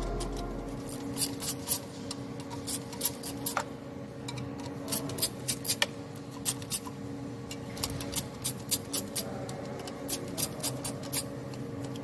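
Hand ratchet clicking in short irregular runs as the fuel rail bolts are undone, over a faint steady background hum.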